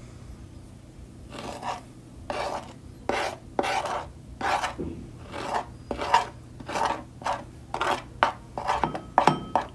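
Metal spoon scraping ground spices across a ceramic plate into a small bowl: a run of short scraping strokes, about two a second, starting about a second in.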